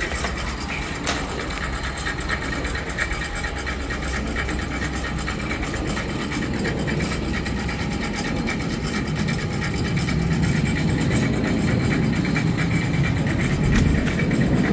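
Machinery running steadily with a fast mechanical rattle of clicks over a low hum. The low rumble grows louder about two-thirds of the way through.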